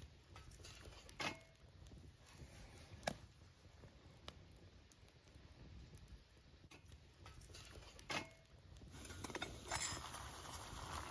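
Sticks burning in a small folding wood stove under a pot, crackling faintly with a few sharp pops spaced seconds apart. A rustling noise comes in near the end.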